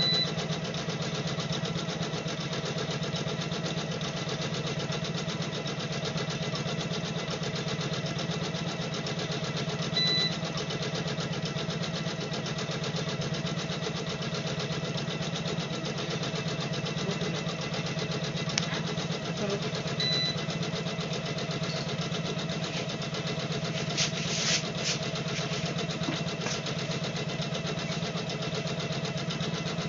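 Computerized embroidery machine running steadily, its needle stitching rapidly through the fabric in the hoop with a fast, even hum. A short high beep sounds about every ten seconds.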